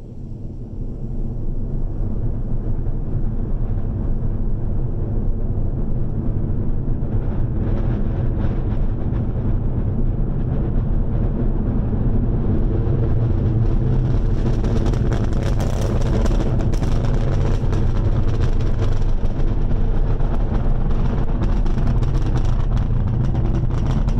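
Falcon 9 rocket's nine Merlin engines at liftoff, heard from about three miles off: a really loud, deep rumble that swells up over the first two seconds and then holds steady. A sharp crackle joins in about halfway through and grows stronger.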